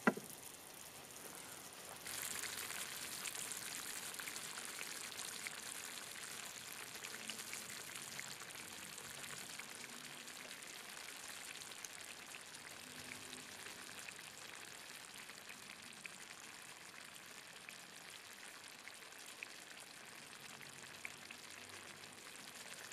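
Sausage-and-pepper stew simmering in a cast iron pan, a faint steady sizzle full of tiny pops and crackles as the vegetables soften. It gets louder about two seconds in, then slowly eases. A single short tap comes right at the start.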